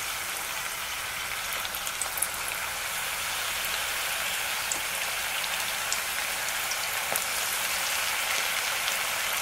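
Samosas deep-frying in hot oil in a steel pan: a steady sizzle with small scattered pops and crackles. The sizzle grows slightly louder as more samosas go into the oil.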